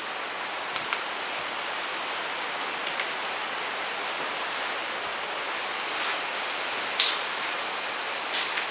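Steady hiss, unexplained, with a few sharp clicks or knocks on top; the loudest click comes about seven seconds in and another near the end.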